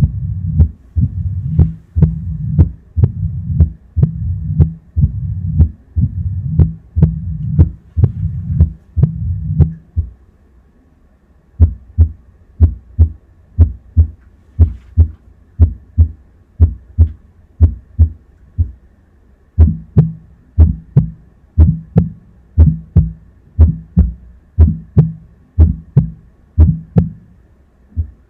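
Heart sounds from a cardiac auscultation simulator playing mitral stenosis with tricuspid regurgitation: regular beats with a low murmur between them. About ten seconds in, the sound drops out for a moment and returns with sharper beats and less murmur; the murmur grows again just before twenty seconds, as different auscultation points are listened to.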